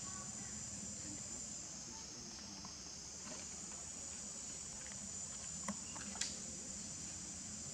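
Steady high-pitched insect chorus, like crickets or cicadas, with two brief clicks a little past halfway.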